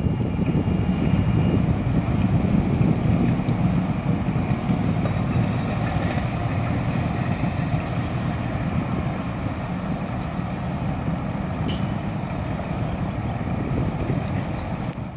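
Outboard motor of a Sealegs amphibious RIB running steadily at low speed on the water, with some wind on the microphone.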